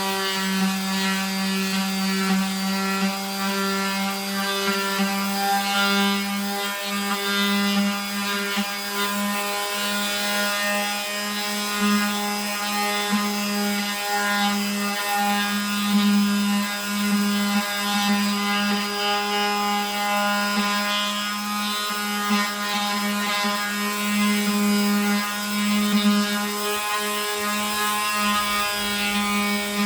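Oscillating multi-tool running steadily against wood: a continuous buzz with a strong low hum and many overtones, its level wavering slightly as it works.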